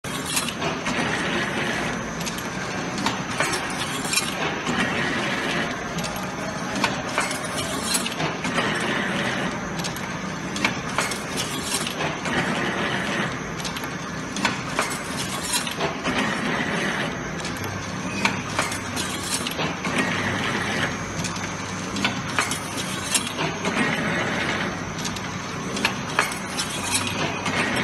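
Automatic galvanized-wire hanger-making machine running, a steady mechanical clatter whose working cycle repeats about every four seconds. Sharp clicks and metallic clinking of the wire hangers run through it.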